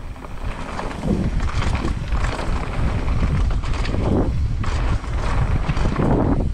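Downhill mountain bike running fast down a dirt trail: a loud rush of wind on the microphone, with tyre roar and repeated knocks and rattles from the bike over rough ground.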